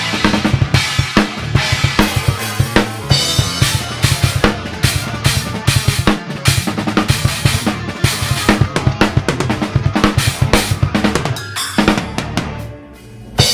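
Acoustic drum kit played fast and busily, with dense kick drum, snare and Paiste cymbal hits. Near the end the playing drops away, then one loud hit lands at the very end.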